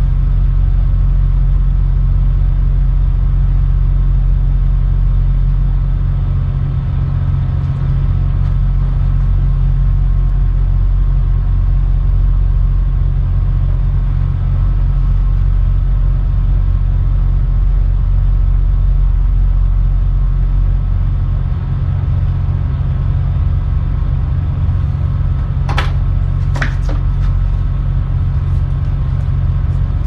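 A tugboat's diesel engines running, heard as a steady low drone from the wheelhouse. Two brief sharp knocks come close together near the end.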